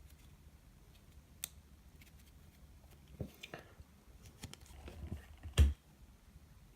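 Baseball trading cards being handled and flipped through: scattered soft clicks and slides of card stock, with a louder thud about five and a half seconds in.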